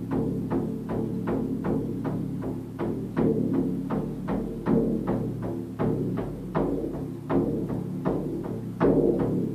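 Native frame drum struck with a beater in a steady beat of about three strokes a second, each stroke ringing on in low tones; a few strokes near the end are louder.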